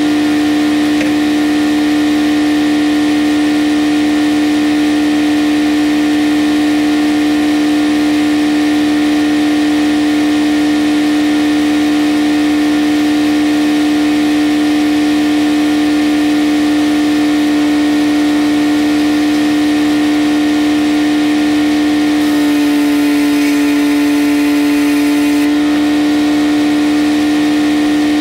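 A circular sawmill's large inserted-tooth head saw and its belt drive running at speed with a steady hum. About three seconds from the end the pitch dips slightly and a hiss rises as the blade briefly takes a cut through the poplar.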